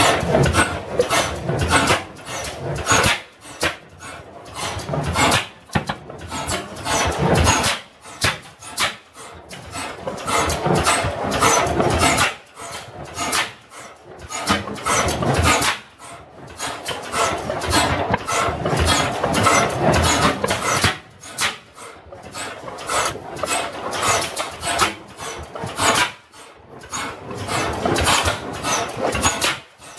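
Twin-cylinder slide-valve gas engine with flame ignition running, a rapid string of sharp exhaust and valve-gear knocks. It comes in loud spells of a few seconds separated by quieter dips, typical of a hit-and-miss engine firing and then coasting.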